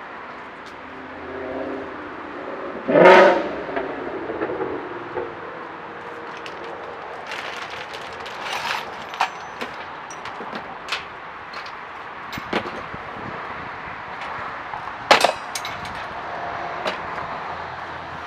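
Scattered knocks and clicks, with a loud clang about three seconds in and another sharp knock near the end.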